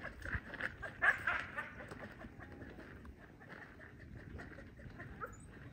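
Animal calls, strongest in the first two seconds and then thinning out.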